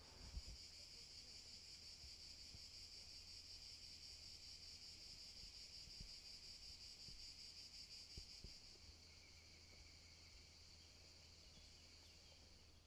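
Faint, steady high-pitched chirring of insects, easing off somewhat after about nine seconds. A soft knock comes about half a second in.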